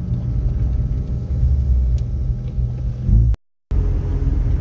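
Mazda RX-7's carburetted rotary engine running under way, heard from inside the cabin as a steady low drone mixed with road noise. About three seconds in, the sound drops out completely for a moment at an edit cut, then resumes.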